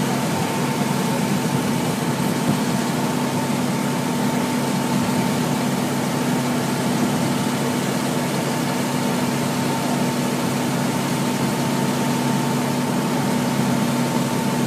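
Fire engine running steadily: a constant engine hum with a steady higher whine over it.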